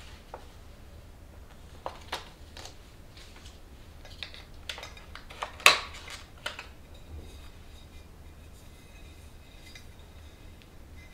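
Staub ceramic baking dish being handled in its cardboard box: a few light rustles and knocks of paper and packaging, then a sharp ceramic clink about six seconds in as the dish is lifted out.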